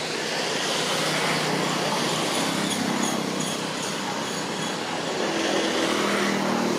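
Motor vehicle engine running past with a steady low hum and traffic noise, swelling about a second in and again near the end.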